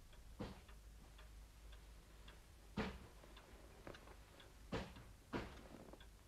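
A clock ticking steadily, about two ticks a second. A few louder, sharper clicks fall in at uneven times.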